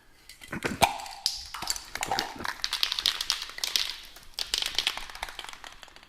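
Scratchy rustling and clicking of things being handled, with a sharp knock about a second in.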